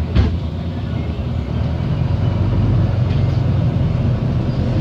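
Bus engine and road rumble heard from inside the moving bus, a steady low drone that grows louder about halfway through, with one short knock just after the start.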